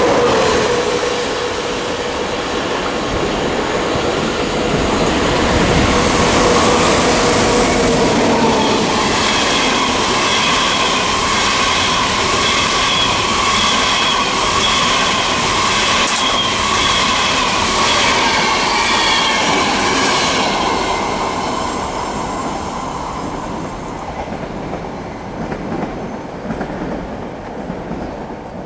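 Passenger trains rolling past at speed: first a TGV Duplex double-deck trainset, then a train of Russian RZD sleeper coaches, with the wheels running on the rails. A high, steady squeal rings through the middle. The sound fades away after about twenty seconds as the last coach clears.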